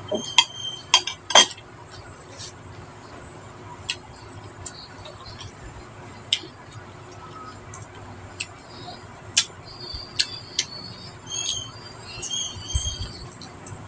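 Close-miked eating sounds: a quick run of sharp clicks and small dish clinks in the first second and a half, then scattered single clicks as food is picked up by hand and eaten.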